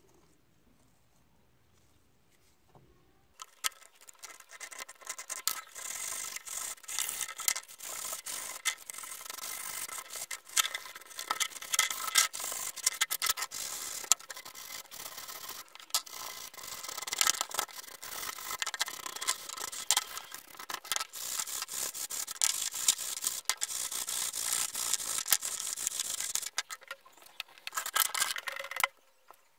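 Rust being scrubbed off a metal part of an old breast drill: quick, uneven rubbing and scraping strokes that start about three seconds in and stop shortly before the end.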